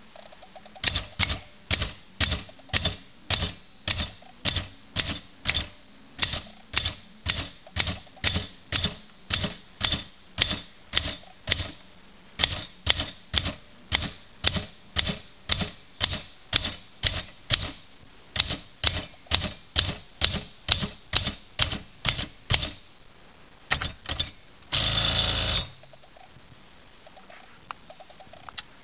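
Smith-Corona Cougar Deluxe manual typewriter typing, keys striking at an even pace of about two a second. Near the end a couple more strikes come, then a loud rasping sweep of about a second, typical of the carriage being returned.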